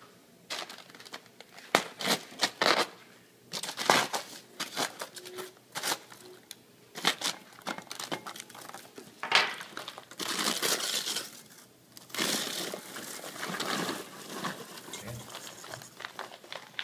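Aluminium foil of a Jiffy Pop pan crinkling and tearing in irregular bursts as its puffed-up dome is cut open after the popcorn has finished popping.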